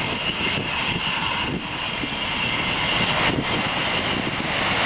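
Lockheed F-104 Starfighter's J79 turbojet running at taxi power: a steady jet whine of high tones over a rushing hiss, growing slightly louder toward the end.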